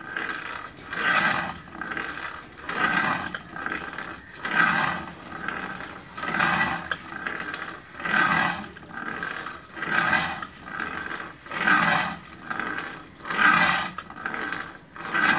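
Kukri blade being sharpened by hand: a rasping scrape in even back-and-forth strokes, about one a second, every other stroke louder.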